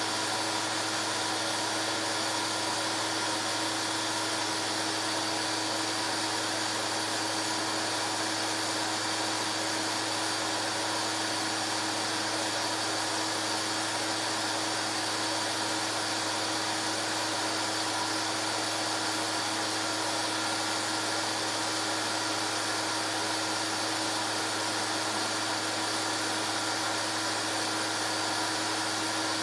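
Steady whir of a home-movie film projector's motor and cooling fan, with a constant hum and a few steady whining tones over a hiss.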